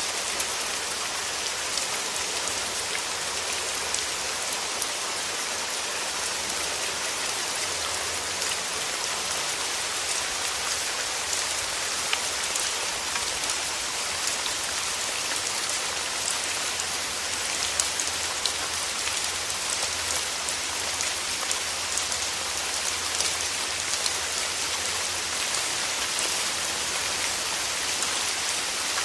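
Steady rain falling, a dense even hiss sprinkled with the small ticks of individual drops hitting a surface.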